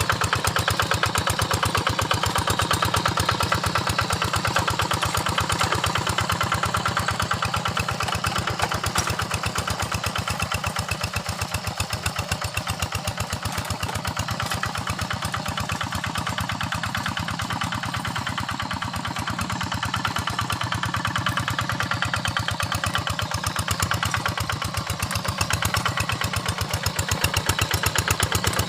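Quick Impala two-wheel hand tractor's engine running steadily with a fast, even firing beat while working the field, easing off a little in the middle and coming up again near the end.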